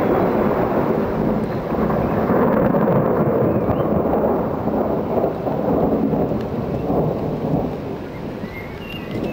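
Long rolling rumble of thunder, loud from the start, then slowly dying away over the last two seconds or so, with rain falling.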